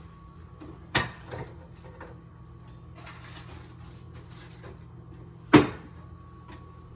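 Kitchen cupboard and door knocks as things are put away: a sharp knock about a second in, a lighter one just after, and a louder bang near the end, over a faint steady hum.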